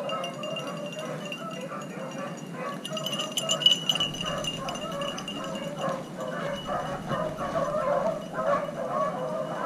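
A pack of beagles baying on a rabbit chase, many short overlapping bays. About three and a half seconds in, a brief metallic jingling is the loudest sound.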